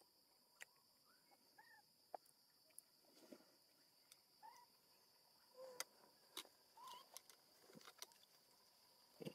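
Faint outdoor ambience: a steady high insect drone, with scattered soft clicks and a few short, high chirping calls that bend up and down in pitch.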